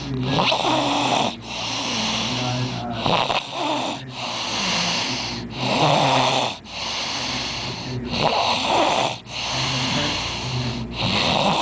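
A person snoring, one snore after another on each breath, with short breaks between them.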